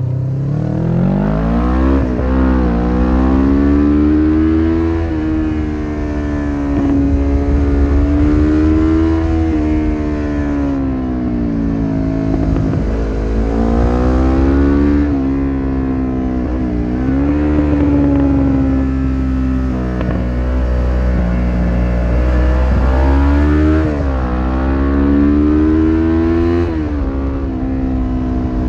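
1993 Suzuki GS500E's air-cooled parallel-twin engine through a Takkoni slip-on exhaust with dB-killer, heard from on the bike while riding. The revs climb sharply right at the start, then rise and fall several times as the bike accelerates, shifts and eases off through the curves.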